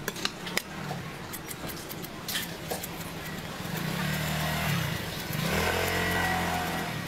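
Knife cutting and scraping the husk of a young coconut in short clicks and scrapes, with a vehicle engine running that gets louder about four seconds in and becomes the loudest sound, its pitch dipping and rising again near the five-second mark.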